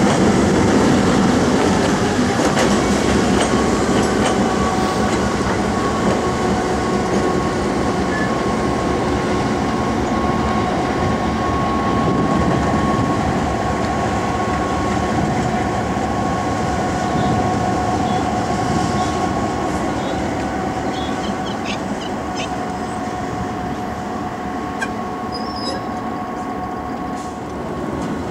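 Diesel locomotives passing close by at a level crossing: engine drone and wheel rumble, with a steady high whine held over it, slowly fading. A few sharp clicks come near the end.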